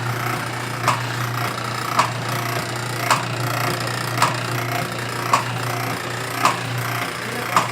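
Old Wanke beltless washing machine running: a steady motor hum with a sharp knock repeating about once a second.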